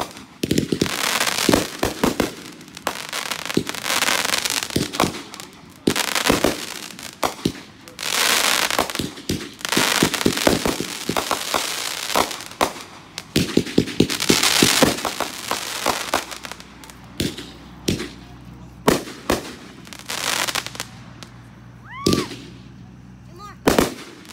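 Aerial fireworks bursting overhead: sharp bangs in quick volleys, between stretches of dense crackle. Fewer and more spaced bangs in the last several seconds.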